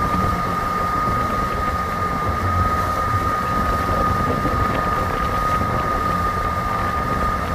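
Boat's motor running at a steady speed, with a constant high whine over a low rumble of wind buffeting the microphone.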